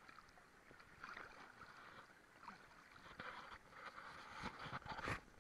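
Faint water splashing and sloshing around a camera held at the surface as a snorkeler moves through shallow water, getting louder toward the end with a few sharp splashes about four to five seconds in.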